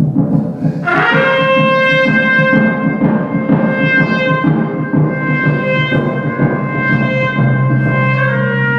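Trumpet holding one long note that comes in about a second in and steps slightly lower near the end, over a continuous low rumble of drums. It is free improvised jazz.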